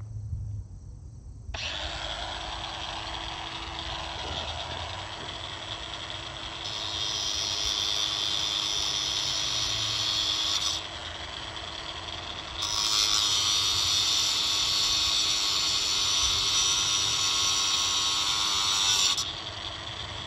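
Bauer 20V cordless 4-1/2 in. angle grinder starting suddenly and cutting metal: a steady motor whine under a high grinding screech. The screech grows louder twice, for about four and then about six seconds, as the disc bites, and drops back near the end.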